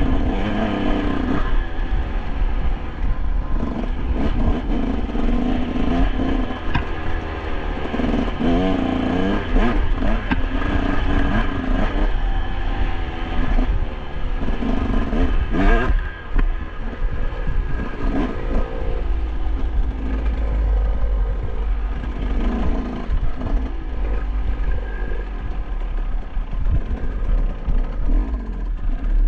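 Dirt bike engine revving up and down over and over as it is ridden along a rough trail, with scattered clattering knocks.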